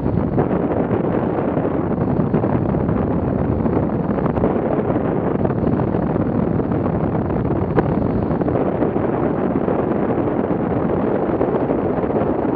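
Steady rush of airflow buffeting the microphone of a camera mounted on a hang glider in flight.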